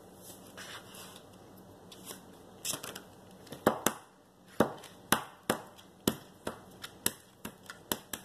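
A run of about ten sharp taps or knocks, roughly two a second, starting a few seconds in after some faint rustling.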